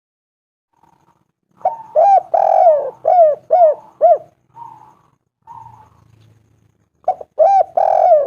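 Spotted dove cooing: a phrase of short, arching coos with one longer drawn-out note begins about a second and a half in. A couple of softer notes follow, then a second phrase starts near the end.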